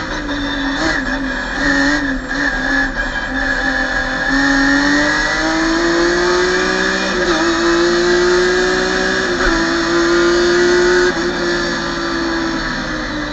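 BMW M3 race car engine heard from inside the cockpit, running hard at high revs. Its note climbs steadily and breaks briefly twice midway, as at quick upshifts. The pitch then falls near the end as the throttle comes off.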